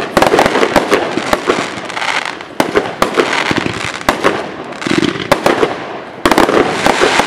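Aerial fireworks shells bursting one after another: loud, sharp bangs at an irregular pace over a continuous hiss, with a denser, louder run of bangs starting about six seconds in.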